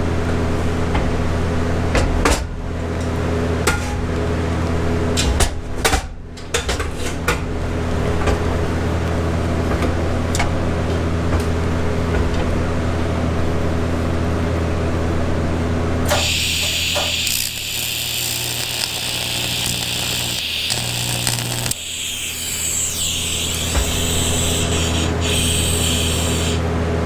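AC TIG welder humming steadily, with a few scattered clicks early on. Over the second half the arc on the cast aluminum casting buzzes and hisses, breaking off briefly once, then stops near the end.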